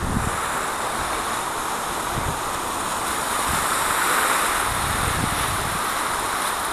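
Wind rumbling on the microphone in low gusts over a steady hiss of surf on the shore.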